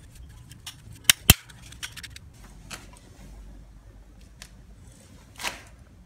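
Hand-held ratchet pipe cutter for plastic water pipe (XL/PB pipe) closing on the pipe: two sharp loud clicks a fraction of a second apart about a second in, then lighter scattered clicks and a brief rasping snap near the end.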